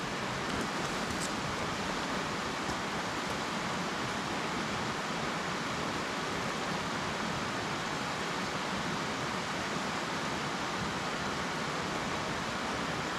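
Steady rushing of a small creek running over rocks.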